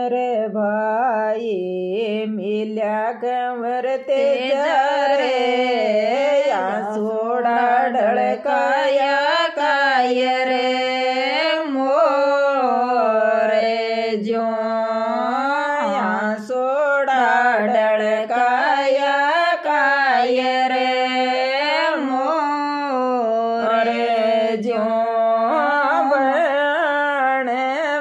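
A woman singing a Tejaji devotional folk song in long, continuous melodic lines with ornamented bends in pitch.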